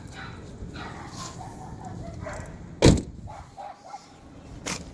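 A pickup truck's door slams shut once, about three seconds in, the loudest sound here. Dogs bark now and then around it.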